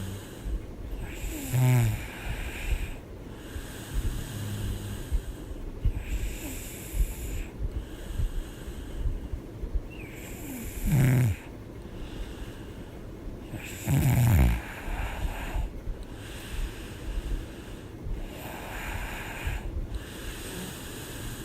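A woman snoring in her sleep: steady snoring breaths every two to three seconds, with three louder snores about two, eleven and fourteen seconds in, the last two sliding down in pitch.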